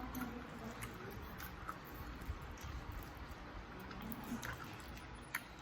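Faint eating sounds: chewing and small scattered clicks of food and utensils over a steady low hum.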